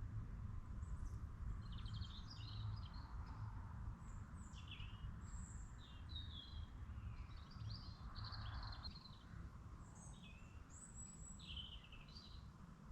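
Songbirds singing faintly: a string of short, quick chirping phrases, over a steady low rumble.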